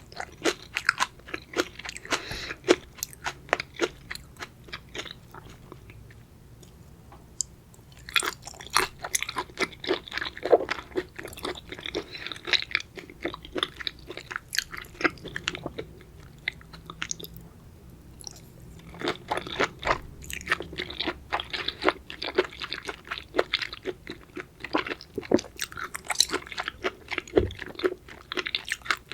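Close-miked chewing of raw seafood: wet, crunchy bites and chews in quick succession, with two brief quieter pauses.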